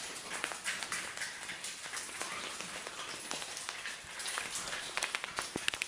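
Water falling like rain down a mine shaft, many drops pattering irregularly on rock and standing water.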